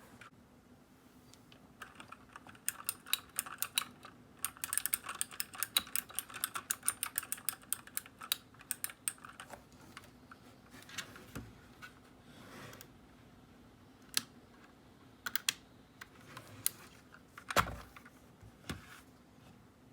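Typing on a Keychron K6 mechanical keyboard with clicky blue switches: a quick run of keystrokes, then scattered single key presses, with one heavier knock near the end.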